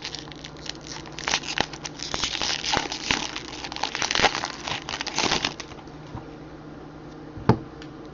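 Crinkling and tearing of a baseball card pack's foil wrapper as it is ripped open, with the rustle running for about four seconds, then a single sharp tap near the end.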